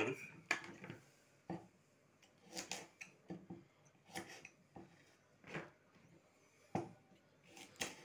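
A small kitchen knife cutting the ends off black carrots on a wooden board: irregular, crisp cuts and taps of the blade on the wood, roughly one or two a second.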